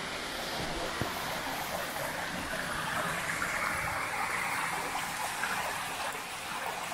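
Shallow creek water running and rippling over rocks as a steady rush, a little louder through the middle.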